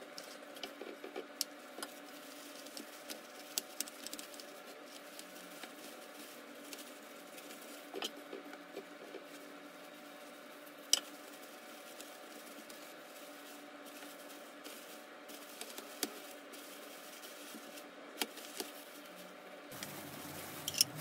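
Quiet food-prep handling: plastic-gloved hands crinkling plastic wrap and moving a metal luncheon-meat can, with scattered light taps and clicks over a faint steady hum. One sharper click comes about halfway through and another at the end.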